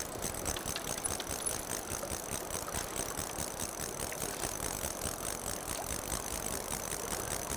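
Fly reel's click-and-pawl drag clicking rapidly and continuously as a hooked summer steelhead is played on a spey rod, over the rush of the river.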